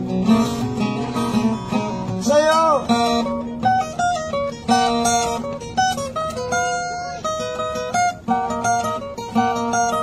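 Acoustic guitar played with picked single notes and chords in a steady melodic line. About two seconds in, a short wordless vocal slide rises and falls over it.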